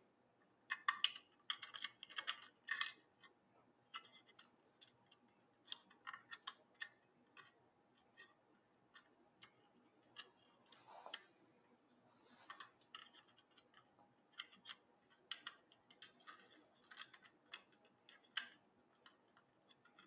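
Faint, scattered clicks and scrapes of tiny screws being started by hand into a Samsung 2.5-inch SSD through a drive adapter bracket, with the drive and bracket handled between the fingers.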